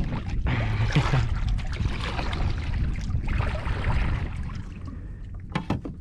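Water splashing and trickling beside a kayak in two spells of a second or so, over a steady low rumble, with a few light knocks near the end.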